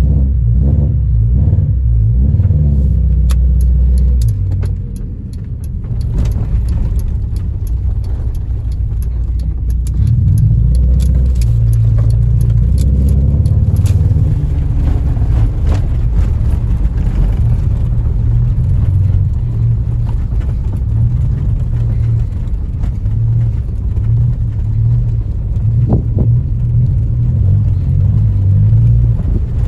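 Honda Civic EJ9's four-cylinder engine running while driving, heard from inside the cabin: an uneven low rumble from misfires on all four cylinders. Scattered light clicks and rattles come through the first half.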